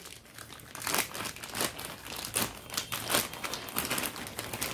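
Plastic courier mailer bag crinkling and rustling in irregular crackles as it is cut open with scissors and pulled apart by hand to get at the packet inside.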